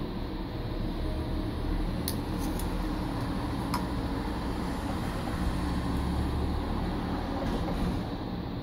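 Steady low background rumble, with a few light clicks of small plastic and metal headphone parts being handled, about two to four seconds in.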